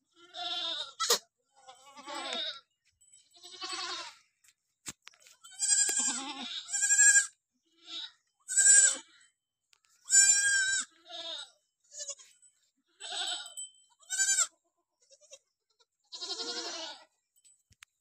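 Barbari goats bleating: over a dozen short calls in a row, each a fraction of a second to about a second long, at differing pitches.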